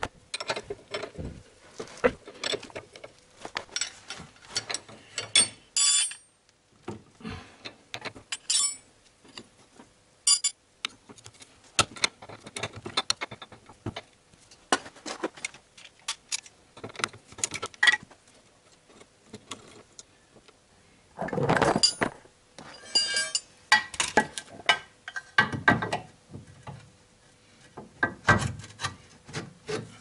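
Hand tools and steel suspension parts being worked on a car's front suspension: irregular clicks, knocks and scrapes, with several brief ringing metallic clinks and one louder knock about two-thirds through.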